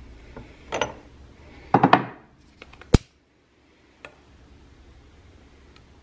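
Glass candle jar and its glass lid being handled: a few clinks and a short scrape, loudest a little under two seconds in, then a sharp click near three seconds and a smaller one at four as a long utility lighter is sparked to light the wick.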